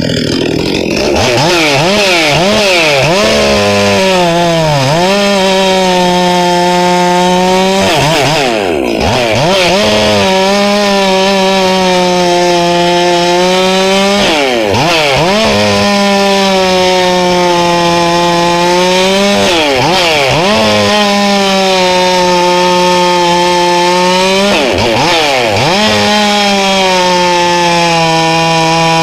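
Two-stroke chainsaw running at high throttle, cutting wood with a full-chisel chain. The engine's pitch dips and recovers about five times, roughly every five seconds, as the saw goes in and out of the cuts.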